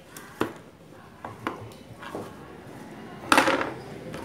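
Metal scissors clicking and clattering as they are handled and set down in a wooden tray among plastic bottle holders, a few light clicks and then a louder clatter a little over three seconds in.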